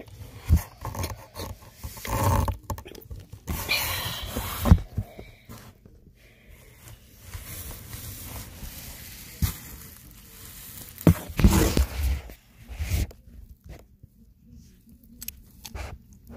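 Irregular rustling and bumping of blanket fabric close to a phone's microphone, with a few sharp knocks and a louder burst about two-thirds of the way through.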